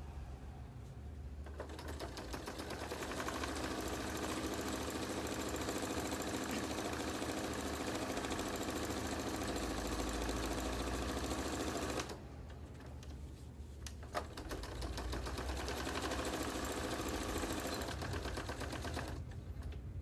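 Electric domestic sewing machine stitching a seam through fabric and batting in a fast, even run of needle strokes. It stops for about two seconds after roughly twelve seconds, gives a single click, then stitches again for several seconds before stopping near the end.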